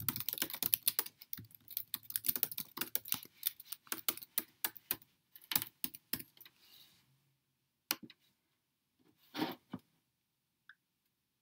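Typing on a computer keyboard, a fast run of key clicks that thins out after about six seconds into a few separate clicks.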